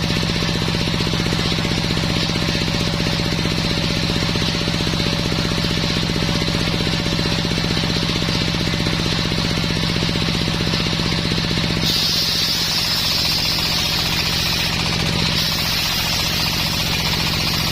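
Engine of a homemade circular sawmill running steadily with a fast, even beat. About twelve seconds in, a loud hiss joins it as the circular saw blade bites into coconut wood.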